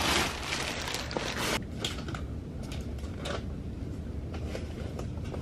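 Black plastic garbage bag rustling and crinkling as it is handled, for about the first second and a half; after that, scattered faint rustles and knocks over a steady low hum.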